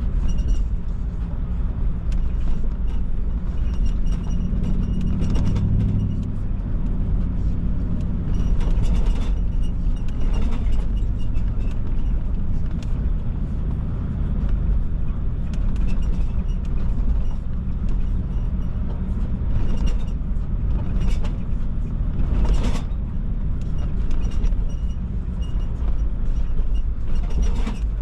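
Vehicle driving over a rough trail: steady low engine and road rumble with scattered knocks and rattles from the bumps. The engine note rises briefly about five seconds in.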